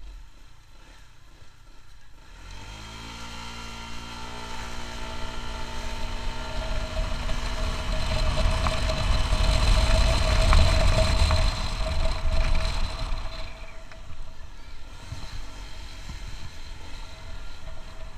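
Honda ADV 150 scooter's single-cylinder engine, fitted with an RS8 CVT set and straight 15 g rollers, under a hard acceleration run. About two and a half seconds in the revs climb quickly, then hold almost steady while the CVT shifts up and wind noise builds with speed. The throttle eases off about thirteen seconds in.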